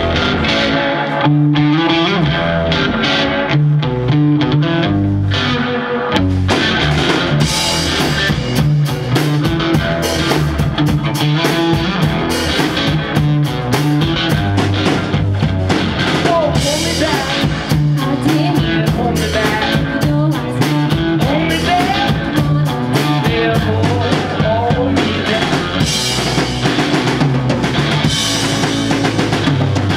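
Live rock duo playing: an electric guitar riff over a drum kit, the drums coming in fully about six seconds in and then driving steadily along with the guitar.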